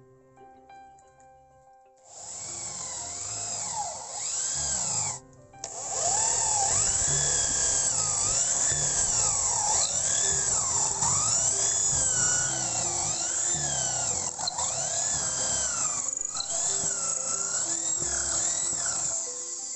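Handheld electric power tool running hard, its whine sweeping down and back up over and over as its speed changes under load. It starts about two seconds in, cuts out briefly near the five-second mark and again later, and stops just before the end, with soft background music underneath.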